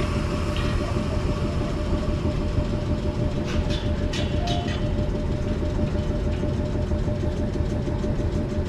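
Sangi Railway ED45 electric locomotive standing still with its on-board equipment running as a steady hum and a steady mid-pitched whine. A few light metallic clicks come between about three and a half and four and a half seconds in.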